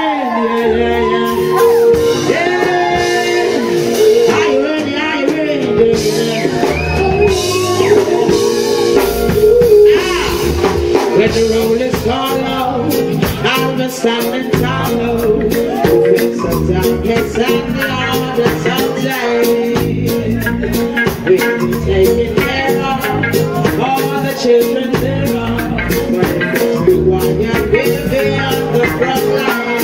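Live reggae band playing on a club stage: a drum kit and guitar keep a steady beat while a female lead singer sings over them.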